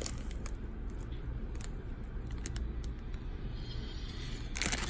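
Scattered light taps and clicks of fingers handling a plastic-wrapped cardboard box, over a steady low hum; near the end a loud rush of crinkling plastic wrap starts.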